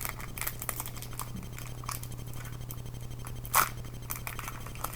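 Faint rustling and small clicks of a Pokémon trading-card booster pack's foil wrapper being handled and opened, with one louder short crackle about three and a half seconds in, over a steady low hum.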